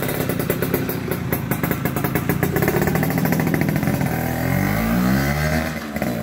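Two-stroke Yamaha Force One 110cc motorcycle with a chrome standard-racing exhaust, revved as it pulls off on a test ride, then accelerating away with its pitch rising over the last two seconds.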